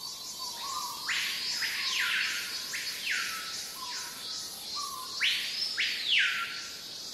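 Intro sound effects: hissing sweeps that rise and fall in pitch, three about a second in and two more about five seconds in, over faint held tones.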